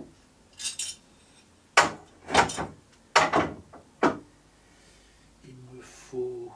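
Tools and parts knocking and clattering against a CNC machine's frame as it is being taken apart: about five sharp knocks in quick succession.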